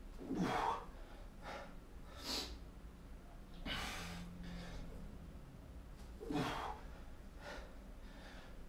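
A man's heavy breathing from the strain of tempo push-ups lowered slowly and pushed up explosively: short, forceful breaths every second or so. The two loudest, with some voice in them, come about half a second in and again about six and a half seconds in.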